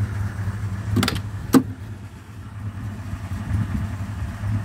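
Car engine idling steadily with a low hum, and two sharp clicks about a second in, half a second apart.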